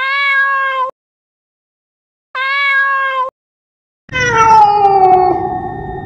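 Domestic cat meowing: two short, level meows about two seconds apart, then a longer, louder meow that falls in pitch. Each call stops abruptly.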